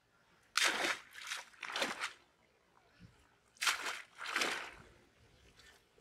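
A wet cast net being handled and shaken on a muddy bank, splashing and sloshing water and mud: three quick splashy rustles about half a second in, then two more around four seconds.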